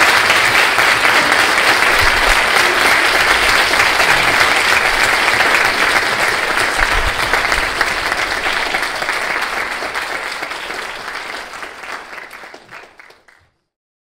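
Large audience applauding steadily, then fading away over the last few seconds to silence.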